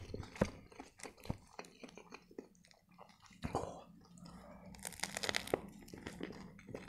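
Close-miked eating of a big turkey shawarma: small wet mouth ticks and chewing, then a bite with the loudest crunch of the wrapper about five seconds in.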